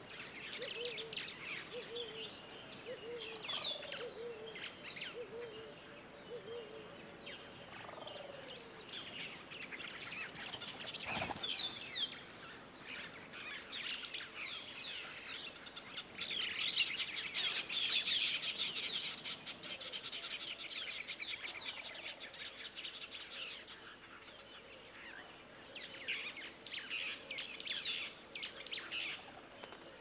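A chorus of wild birds chirping and calling, many overlapping high calls that swell to their busiest a little past the middle. A faint high note repeats steadily behind them, a low call repeats several times in the first few seconds, and a single sharp knock comes about eleven seconds in.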